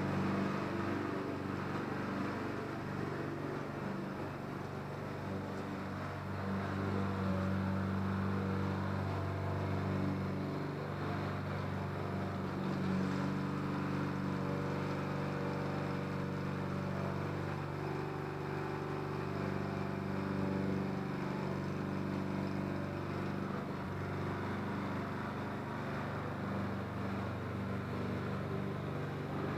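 Remote-controlled lawn mower's engine running steadily, its pitch shifting slightly now and then.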